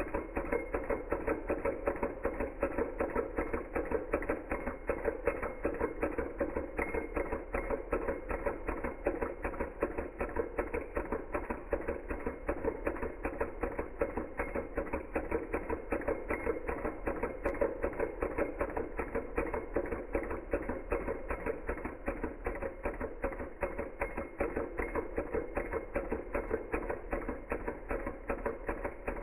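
Small Hog Motor Stirling engine running steadily, its linkage and flywheel making a rapid, even mechanical clicking.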